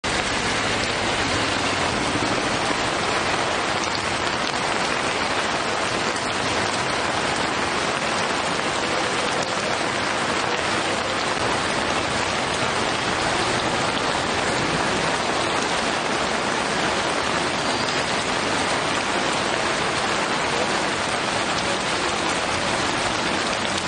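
Heavy monsoon rain falling hard and steadily, a dense even hiss with no let-up.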